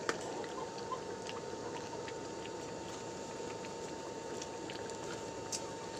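Eel stew in coconut milk simmering in a wok: a steady bubbling hiss with many small scattered pops and clicks.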